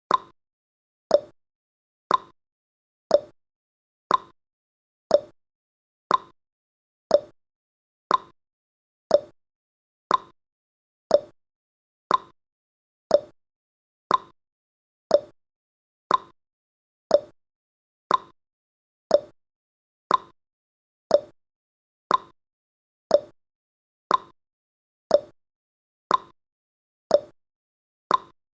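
Clock-style tick-tock sound effect of a countdown timer: a short, sharp tick once every second, alternating between a lower and a higher pitch.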